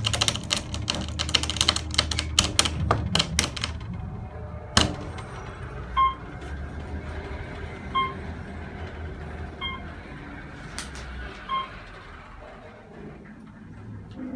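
Elevator car chiming four times, a short single-pitched ding about every two seconds, the signal it gives as it passes floors, over the low steady hum of the moving car. Before that come a rapid run of clicks and one sharp knock.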